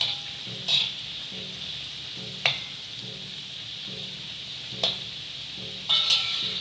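Curry puffs deep-frying in hot oil in a metal wok: a steady sizzle, with a metal slotted spatula knocking and scraping against the wok several times as they are turned.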